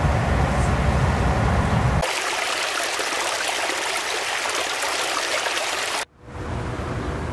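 Shallow stream running and splashing over rocks, a steady rushing hiss that starts about two seconds in and cuts off abruptly about six seconds in. Before it there is a low outdoor rumble, and after it a quieter ambience.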